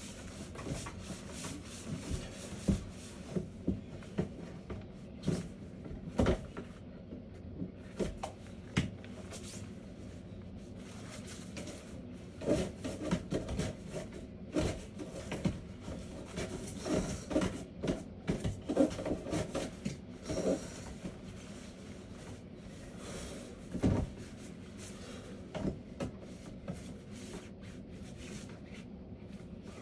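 Irregular knocks, clunks and scrapes of a vent-cleaning brush on a rod being pushed and worked inside a dryer vent duct, over a steady background hum. The knocks come thickest about halfway through.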